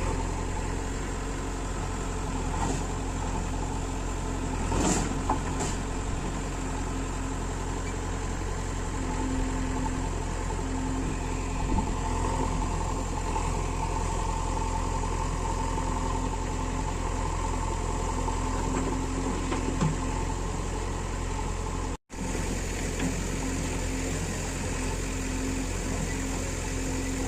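Diesel engines of a backhoe loader and tractors running steadily, with a few short knocks, and the sound dropping out for an instant about two-thirds of the way through.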